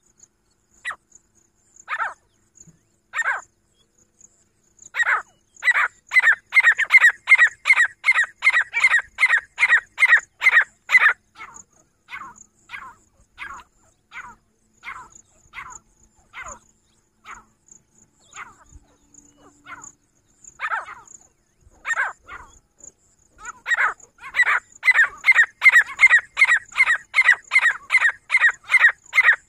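Grey francolin (teetar) calling: a few single sharp notes, then a fast run of loud repeated calls at about three a second, easing into slower spaced notes, then a second fast run near the end. The video presents the caller as a female.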